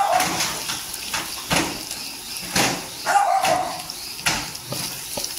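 Chopped garlic frying in hot oil in a nonstick kadai, sizzling as a wooden spatula scrapes and stirs it. Twice, at the start and about three seconds in, a short bark-like call sounds over it.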